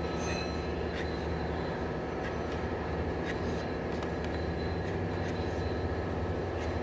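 A steady low mechanical rumble of shop machinery, with short scraping strokes of a hand sanding block on body filler on a pickup tailgate every half-second to second.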